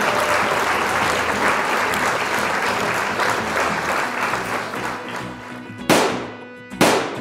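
Added soundtrack effects: a dense applause-like clatter that fades away over about five seconds, then two sharp hits about a second apart near the end.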